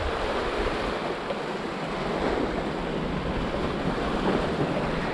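Sea swell washing and surging over a kelp-covered rock ledge, a steady rushing of surf with wind buffeting the microphone.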